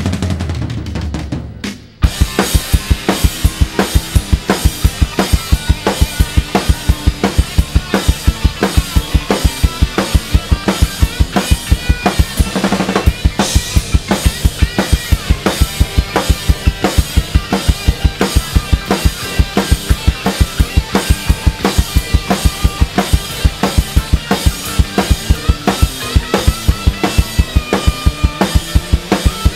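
Acoustic drum kit played hard to a rock backing track. About two seconds in, one song of the medley fades out and the next kicks in with a fast, steady beat of bass drum and snare under cymbals.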